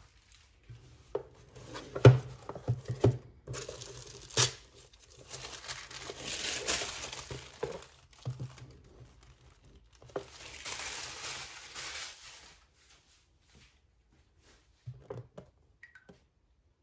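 Plastic wrapping crinkling and tearing as it is pulled off a cardboard figure box, with a few sharp knocks and taps of the box being handled in the first few seconds. Two longer stretches of rustling follow, and only faint handling near the end.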